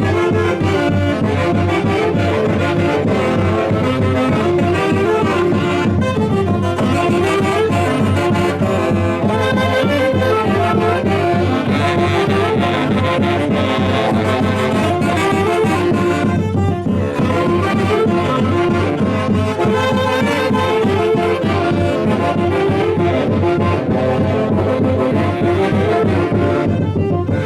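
A Huancayo orquesta playing festival music, led by brass and saxophones, loud and continuous.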